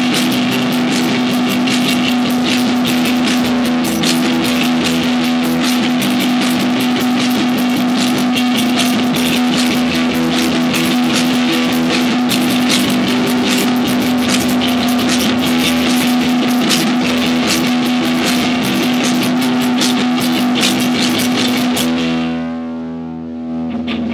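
Loud live rock band: drum kit with cymbals struck throughout, electric guitars and bass guitar over a note held the whole time. About two seconds before the end the drums stop and the guitars ring on, fading.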